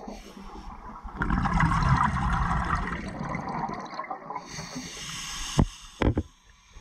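Underwater bubbling and water rush picked up through a submerged camera, swelling for a couple of seconds about a second in and then fading, followed near the end by two sharp knocks.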